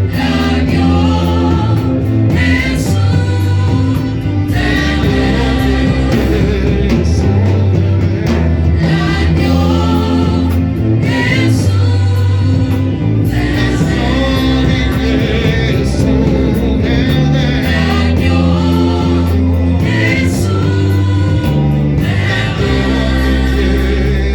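Gospel worship music: a choir of voices singing over a band with a strong, steady bass line.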